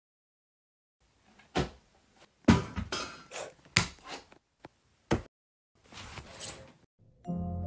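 Cartoon impact sound effects: after a second of silence, a string of about seven hard thuds and knocks, then a short rushing noise, with music coming in near the end.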